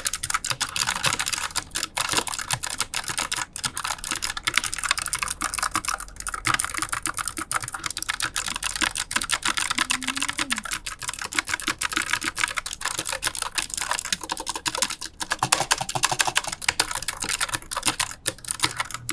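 Rapid typing on a Tsunami MKS-68 low-profile mechanical keyboard fitted with blue (clicky) switches: a dense stream of sharp key clicks, with a few brief pauses.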